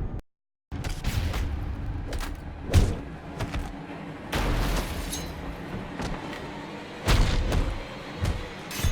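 Movie-trailer fight sound effects: a rapid string of punches, heavy thuds and crashes over a low music bed, with a brief cut to silence just at the start.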